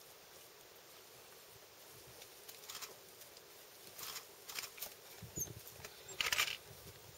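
A pack of African wild dogs milling in dry grass: faint rustling at first, then from about two seconds in a scattering of short, sharp, high sounds, the loudest a little after six seconds.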